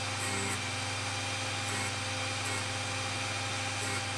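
OTMT drill bit sharpener running with a steady electric hum. A few short, light grinding sounds come as the drill point is rolled back and forth against the wheel to grind the relief angle behind the cutting edge.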